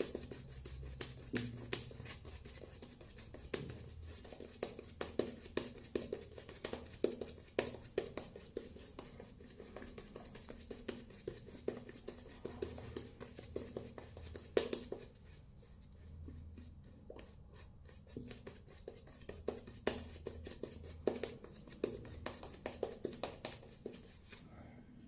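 Shaving brush working lather onto a face and neck: quick, irregular, scratchy strokes of wet bristles on skin, with a pause of a few seconds past the middle.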